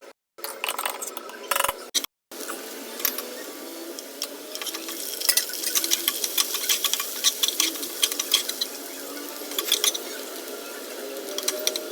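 A metal utensil stirring and clinking against a pan in quick, uneven taps over a steady sizzle of food frying.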